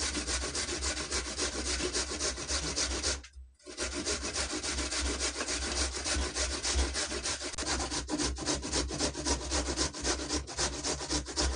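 Raw carrots being grated on the fine side of a stainless steel box grater: a fast, even run of rasping strokes, with a short break about three seconds in.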